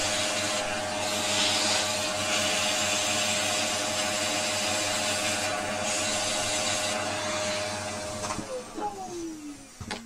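Vacuum cleaner running steadily with a constant whine, then switched off about eight seconds in, its motor winding down with a falling whine. A couple of knocks near the end.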